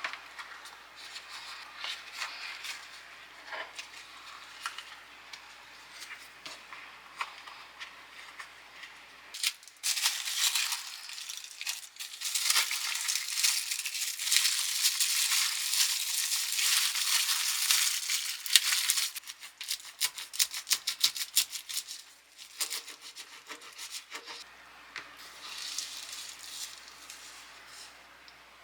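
Kitchen food-preparation sounds: scattered clicks and rattles, with about seven seconds of loud, dense crackling in the middle of the stretch.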